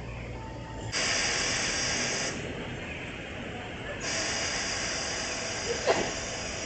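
Iyotetsu 50-class tram No. 75's horn giving two hissing blasts, the first about a second in and lasting just over a second, the second starting about four seconds in and still sounding at the end.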